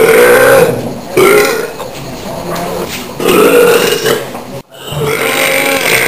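A man belching loudly, four burps one after another.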